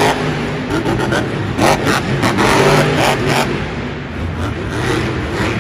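Monster truck engine revving hard, its pitch rising and falling as the throttle opens and closes.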